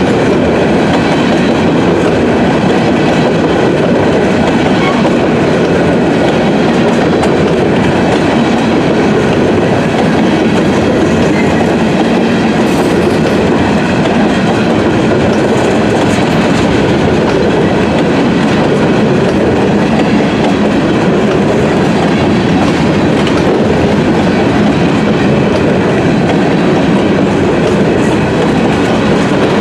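Covered hopper cars of a Canadian National grain train rolling past close by, their steel wheels rumbling on the rails in a loud, steady, unbroken run.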